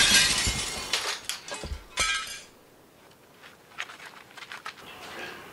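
Glass shattering with a loud crash, followed by clinks and knocks of falling pieces and a second smaller crash about two seconds in; a few faint clinks trail off after that.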